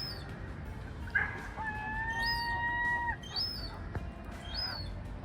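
A gull calling: a short note about a second in, then one long, level, whining whistle held for about a second and a half. Short high chirps recur about once a second throughout.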